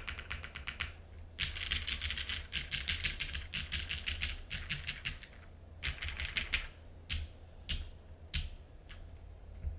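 Typing on a custom mechanical keyboard with linear Cherry MX Black switches heavily lubed with Krytox 205g0, an aluminium plate and GMK doubleshot keycaps: quick runs of keystrokes, then a few single, spaced key presses over the last three seconds.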